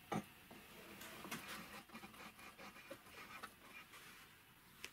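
Faint handling sounds of threaded brass air fittings being fitted onto a steel tank: a sharp click about a quarter-second in, a scatter of small metal clicks and taps, and another click near the end.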